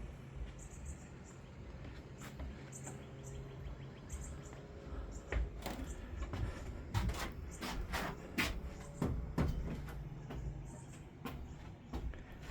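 Scattered knocks and clunks, as of wooden shelving and boards being handled or stepped on, most frequent in the middle, over a low steady hum.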